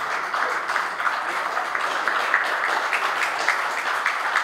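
A small crowd clapping: many hands applauding together in a dense, irregular patter that starts abruptly and keeps up steadily.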